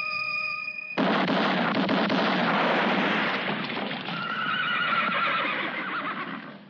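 Music with steady, wavering theremin-like tones stops about a second in, cut off by a loud horse whinny lasting about five seconds, with a higher shaky cry in its second half before it fades.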